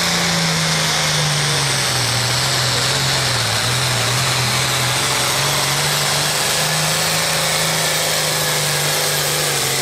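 John Deere 4455 tractor's turbocharged six-cylinder diesel running hard under load as it drags a tractor-pull sled. Its pitch wavers up and down through the pull, with a thin high whine over it.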